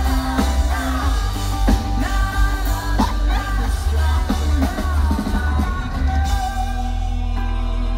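Live rock band playing through a festival sound system, heard from within the crowd: a singer's voice over drums, guitar and heavy bass. The drum hits stop about six seconds in, leaving held chords under the voice.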